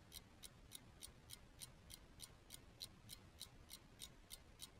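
Clock ticking faintly and evenly, about three ticks a second.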